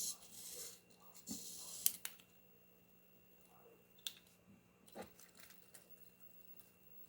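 Small hobby servo motor on the bracket's base, driven by a servo tester: two short whirring bursts in the first two seconds, then a few scattered clicks.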